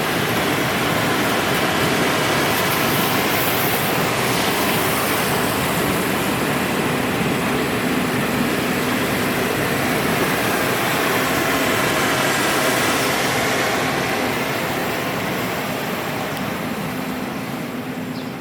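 Passenger train running on rails: a steady rush of wheel and track noise that slowly fades over the last few seconds.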